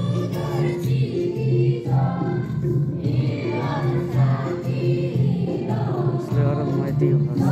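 Music: a group of voices singing together over steady low held accompanying notes.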